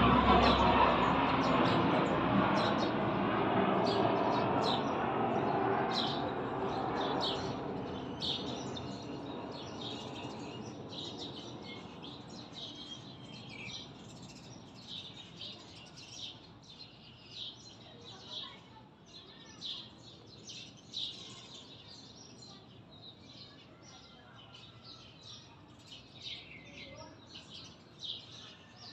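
Small birds chirping in the background, many short high chirps coming irregularly throughout. A louder steady rushing noise fades away over the first several seconds.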